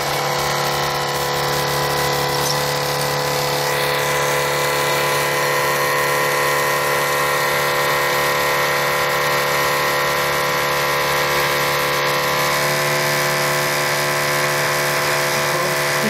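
Microwave oven cooling fan motor running on a Gerard Morin pump setup: a steady hum and whine of many tones.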